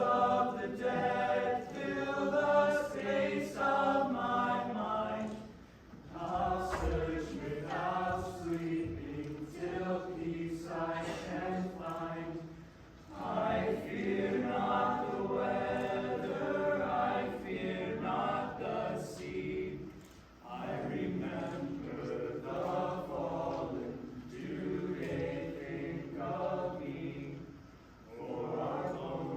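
A group of voices singing together unaccompanied, a slow chant-like choral song in long phrases with a short break every six or seven seconds.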